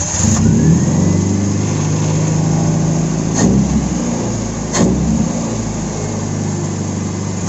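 Car engine catching right as cranking ends and settling into a steady idle, with two brief sharp spikes about three and a half and five seconds in. It starts readily now, a sign that its hard-starting fault is fixed.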